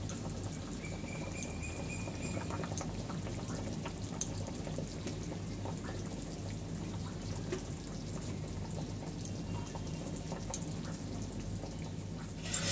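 Thin curry gravy bubbling at a boil in an aluminium kadai, with a few small pops and light taps.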